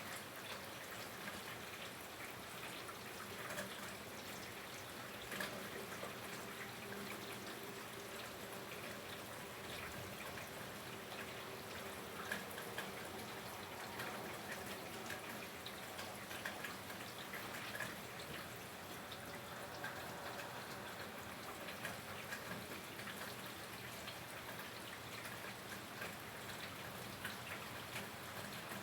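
Steady rain falling, with many separate drops and drips ticking close to the microphone.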